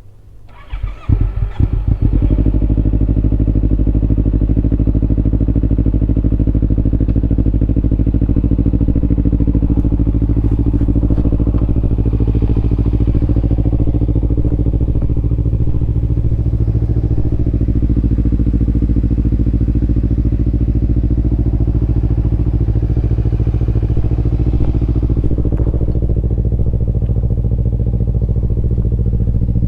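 Kawasaki Ninja 250 with a Yoshimura aftermarket exhaust starting up: a few uneven firings about a second in, then the engine catches and idles steadily through the exhaust.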